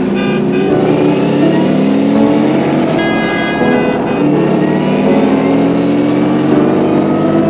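Mustang V8 accelerating hard, its engine note climbing in pitch, dropping at each gear change and climbing again.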